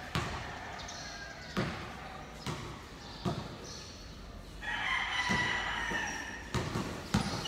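A basketball bouncing on a concrete court, about seven thuds at uneven intervals. Midway a rooster crows for about two seconds.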